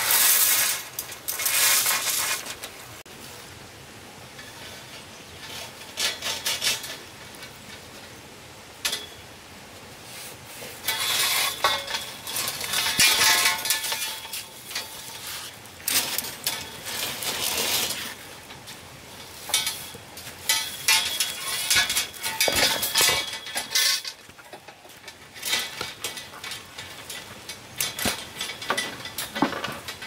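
Repeated bursts of scraping with light clinks, each lasting a second or two with short pauses between them, as of a hard tool or utensil worked against a hard surface.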